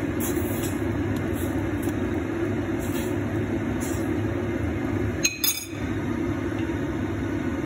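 A pot of orange, lemon and ginger boiling on the stove with a steady rushing sound. A sharp, ringing clink comes about five seconds in. The rushing drops away abruptly near the end.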